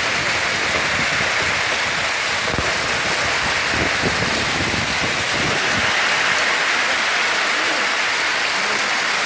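Rain pouring steadily during a tropical storm, a dense, even hiss with no break.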